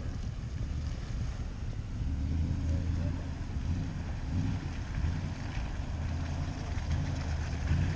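Pickup truck engine running at low revs, a steady low rumble that swells and eases as the throttle changes.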